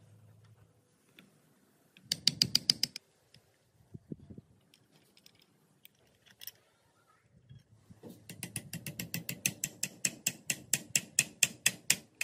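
Restored three-needle sewing machine working, its mechanism clicking in a quick, even rhythm of about eight clicks a second over a low rumble. A short run about two seconds in, then a longer run from about eight seconds on.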